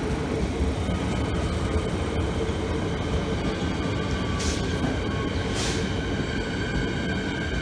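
Siemens Nexas electric multiple-unit train running past, with a steady rumble of wheels on rail and a low hum. From about halfway, several steady high electric tones come up from the train's traction equipment. Two short hisses sound about four and a half and five and a half seconds in.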